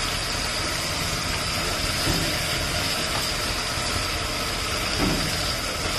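Steady roar of a street-food wok stove and its kitchen, with a faint high whine running through it. Two short low bumps sound about two and five seconds in.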